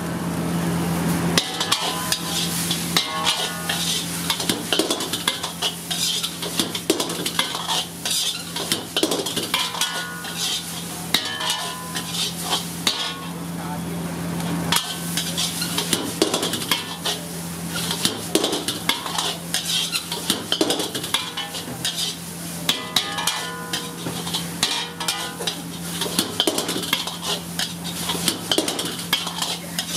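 Steel ladle scraping and clanking against a large wok as hakka noodles are tossed and stir-fried, the hits coming in quick irregular runs, some with a short metallic ring. A steady sizzle and a steady low hum run beneath.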